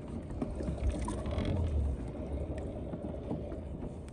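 Fishing kayak sitting on the water: a steady low rumble with a few faint knocks from the hull and gear.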